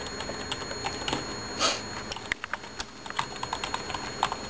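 Typing on a computer keyboard: irregular clicking keystrokes, with one louder clack about a second and a half in.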